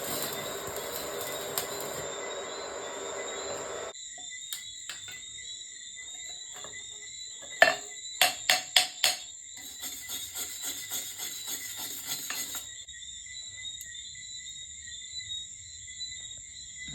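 Stick (MMA) arc welding with an Ingco 160A inverter welder: a steady crackling hiss for about four seconds that cuts off suddenly. Then about six sharp metal strikes and a run of quicker, lighter taps, over a high steady whine.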